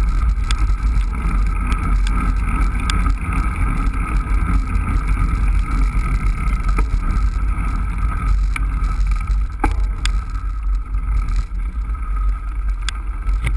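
Wind rumble on the microphone of a camera riding on a moving bicycle, mixed with tyre noise on a paved path. A few sharp clicks and knocks from the bike come through now and then.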